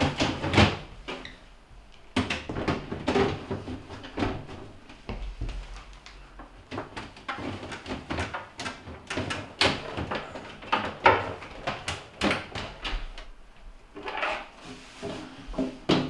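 Clear plastic refrigerator crisper drawers being slid onto their rails and pushed home: an irregular clatter of plastic knocks and sliding scrapes, with the sharpest knocks about half a second in and about eleven seconds in.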